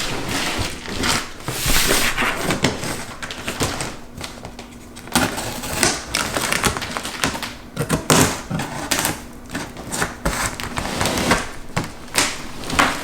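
Gift box packaging being handled and pulled open by hand: an irregular run of crinkles, rips and clicks of cardboard and wrapping.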